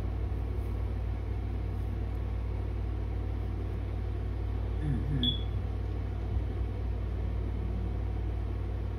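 A steady low rumble, with a brief faint vocal sound about five seconds in.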